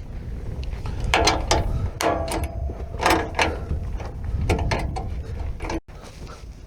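Hand tools working on bolts under a truck: a ratchet wrench clicking and metal clinking in irregular bursts as the skid plate bolts are tightened. The sound breaks off abruptly shortly before the end.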